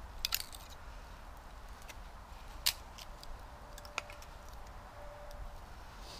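A few sharp knocks and cracks from a small bushcraft axe splitting a short piece of wood into kindling: a quick cluster just after the start, the loudest crack about two and a half seconds in, and a lighter knock at about four seconds.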